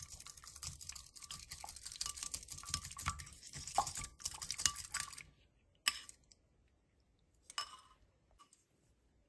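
Coil whisk beating eggs and cream in a ceramic bowl: rapid clicking and tapping of the wire against the bowl, which stops about five seconds in. A couple of single taps follow.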